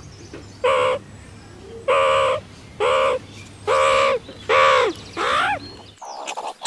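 A crow cawing, six harsh calls spaced about half a second to a second apart, some ending in a falling pitch, over a low steady hum. Near the end the sound cuts to rapid scratching clicks.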